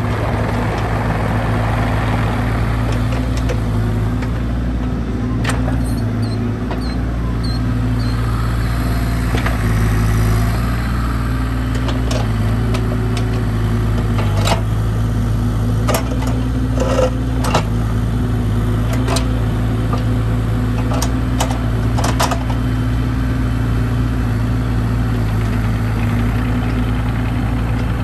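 Bobcat E35 mini excavator's diesel engine running steadily while its boom, arm and bucket are worked hydraulically, with scattered sharp knocks through the middle of the stretch.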